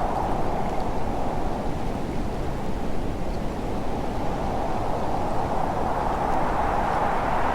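Blizzard wind blowing steadily, a dense rushing noise with a hollow howl that swells a little near the end.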